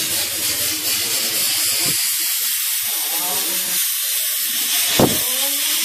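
A steady hiss, with one sharp knock about five seconds in.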